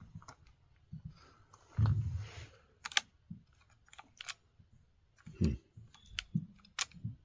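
Scattered clicks, taps and light knocks of small hand tools and parts being handled on a chainsaw under repair. There is a brief rustle about two seconds in and a duller knock past the middle.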